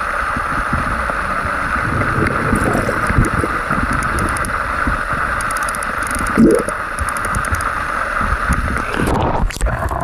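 Steady rush of a fast-flowing stream, with low knocks and rumbles through it and a brief louder thump about six and a half seconds in.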